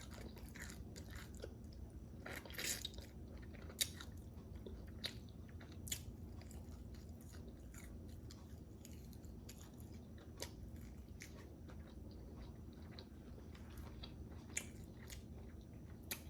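A person chewing crispy fried chicken wings close to the microphone, with scattered short crunches and clicks and a cluster of crunches about two to three seconds in.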